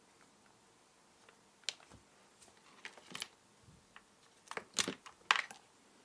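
Light fingertip taps and clicks on a Kindle e-reader's touchscreen as it is woken and brought to its passcode keypad. About half a dozen quick taps come from about a second and a half in, the loudest of them near the end.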